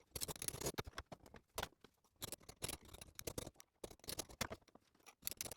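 Metal lock tabs being bent back over the crown wheel bolt heads of a Classic Mini differential: a run of small, irregular metallic clicks and taps of tool on steel.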